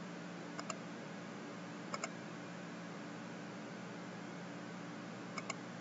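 Computer mouse clicking: three quick double clicks spread over the few seconds, over a steady hiss and low hum of room tone.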